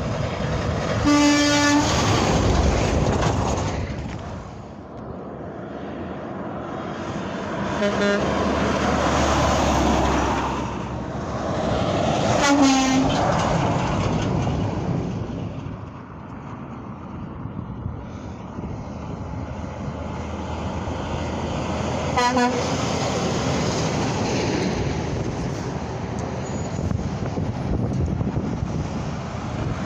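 Semi-truck air horns blowing over the rush of passing highway traffic. There is one longer blast near the start, then several brief toots spread through, while trucks swell and fade as they go by.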